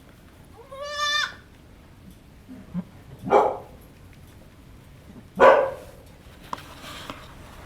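Goats calling during a doe's labour: a short, clear, high bleat about a second in, then two loud, harsh cries about two seconds apart.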